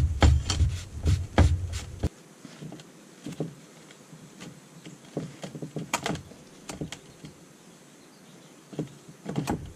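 Hand work on a Fox Float RP23 rear shock. A quick run of regular knocks, about three a second, stops abruptly about two seconds in. Faint clicks and handling noises follow as the shock's air can is worked loose by hand.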